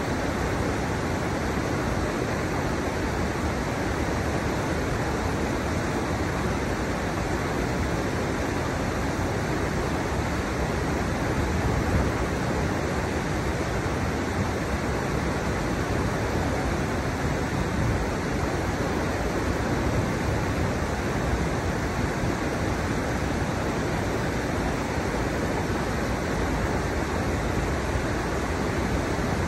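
Shallow river water rushing steadily over the steps of a stepped riverbed, a constant even rush with no breaks.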